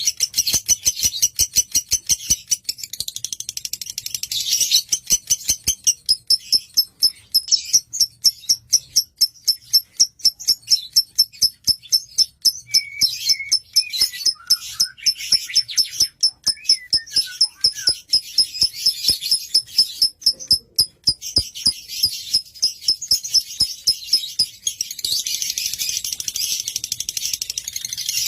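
Lovebird singing a long, rapid run of high, sharp chirps at about five a second, with denser chattering at the start and near the end.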